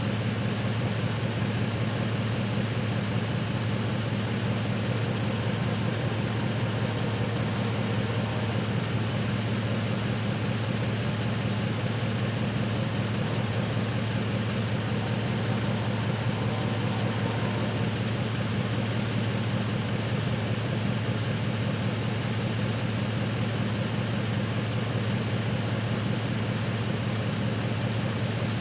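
Truck engine idling steadily at a constant low pitch, with no change in speed.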